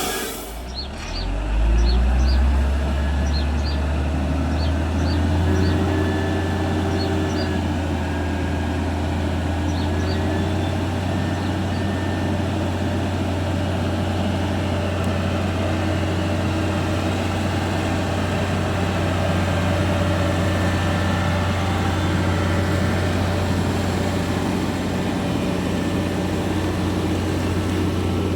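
Hino concrete mixer truck's diesel engine running with a low, steady drone. It builds up and rises a little in pitch over the first few seconds, then holds steady.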